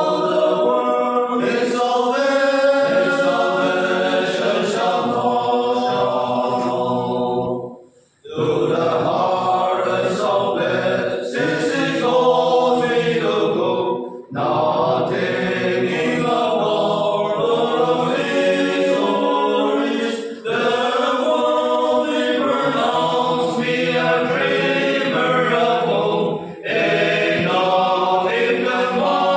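A group of men singing a hymn together from song sheets, pausing briefly between phrases about every six seconds.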